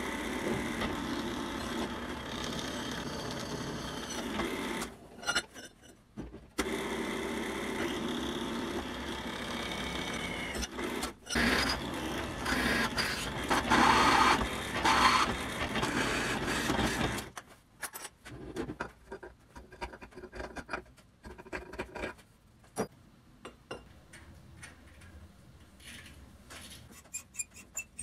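A shop power tool running on metal for long stretches with two short pauses, then stopping about two-thirds of the way through, leaving scattered light clicks and knocks of metal parts being handled.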